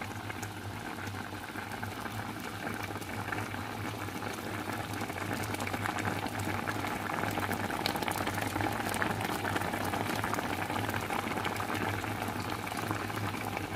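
A pot of ramen broth with noodles boiling on the stove: steady bubbling and crackling over a constant low hum.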